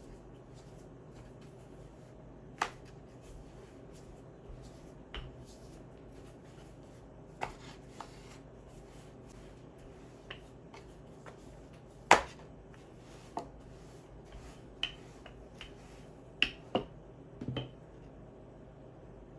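Scattered sharp clicks and taps of hands handling things, about a dozen, the loudest about twelve seconds in, over a low steady hum.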